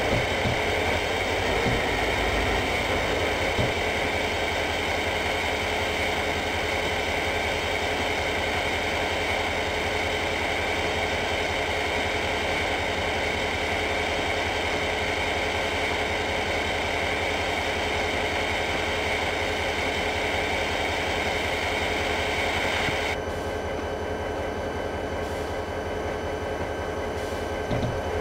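Steady mechanical running noise: an even rush with a constant hum and whine. The higher part of the rush cuts off suddenly about three-quarters of the way through.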